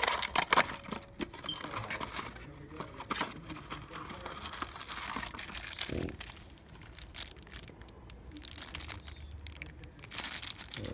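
Plastic wrapping crinkling around a wheel center cap as it is handled, with scattered small clicks and knocks, loudest near the end.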